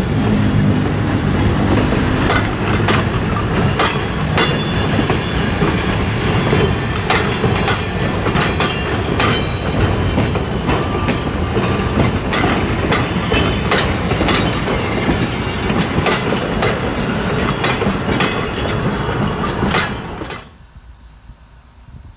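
Freight cars rolling past close by: steel wheels rumbling on the rails and clicking over the rail joints. It cuts off suddenly about twenty seconds in, leaving a much quieter background.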